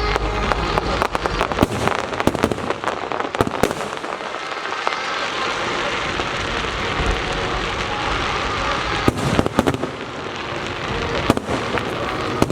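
Fireworks and firecrackers going off: a rapid run of sharp bangs, easing into a dense steady crackle in the middle, then more scattered loud bangs near the end.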